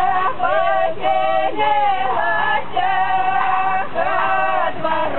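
Female voices singing a slow melody with long held notes.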